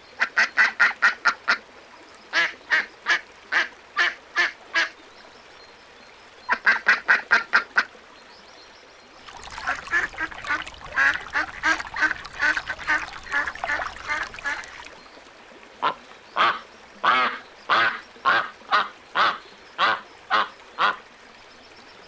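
Ducks quacking in quick runs of short quacks, several a second, separated by short pauses. In the middle comes a longer stretch of dense, overlapping quacking over a steady rushing noise.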